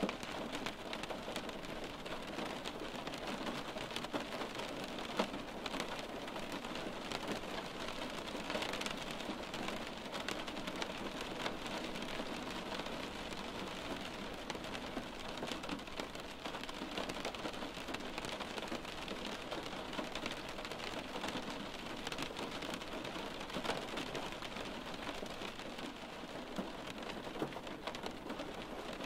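Steady rain on a window pane, a continuous patter with many small taps of drops on the glass.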